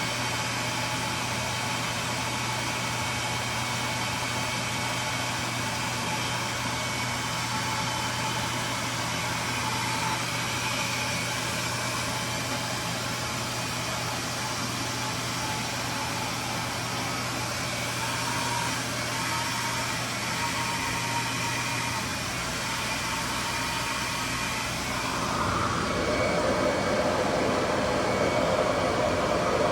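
RevAir reverse-air hair dryer running steadily, a continuous motor whir and rush of air with a steady hum. About 25 seconds in it gets louder and its tone shifts.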